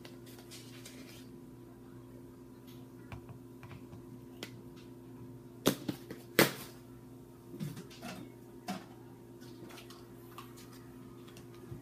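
Knocks and clicks of plastic being handled while a protein shake is mixed in a plastic shaker cup: two sharp knocks a little past halfway, then a few lighter clicks, over a steady low hum.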